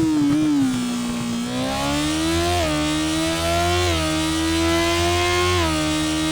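Motorcycle engine and exhaust at speed: the engine note drops as the throttle eases for about a second and a half, then climbs again under acceleration, broken three times by brief quick dips as it shifts up through the gears.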